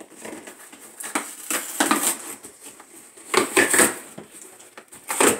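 Cardboard shipping box being torn open by hand, its tape and top strip ripped off in several short, rough pulls, the loudest about three and a half seconds in.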